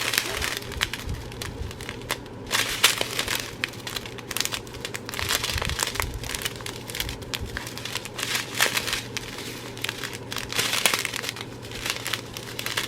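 Plastic packaging crinkling and crackling in irregular bursts as it is handled.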